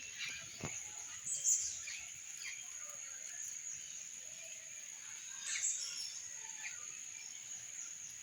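Birds chirping a few times, about a second in and again past the middle, over a steady high-pitched hum.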